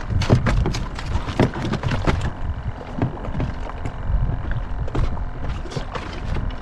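Water slapping and knocking against the hull of a small drifting fishing boat, in irregular short splashes, over a low rumble of wind buffeting the microphone.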